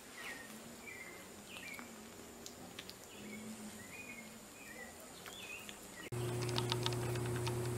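Faint short high chirps, some falling in pitch, come irregularly a few at a time. About six seconds in the sound cuts to a much louder steady low hum, with a quick run of clicks just after the cut.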